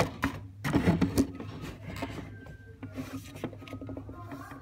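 Hatari centrifugal ceiling exhaust fan running with a steady low motor hum, overlaid by irregular rubbing and knocking sounds from the phone handled against the fan housing, loudest about a second in.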